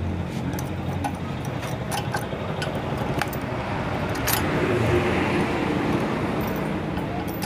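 Light metallic clicks and taps as a motorcycle cylinder head and its timing chain are handled and seated, over a background of road traffic that swells to its loudest about four to five seconds in.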